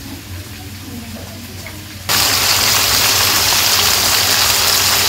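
Chicken and potato curry sizzling loudly in a wok on a gas stove as the meat is fried down in its spices. The sizzle sets in suddenly about two seconds in, after a quieter stretch.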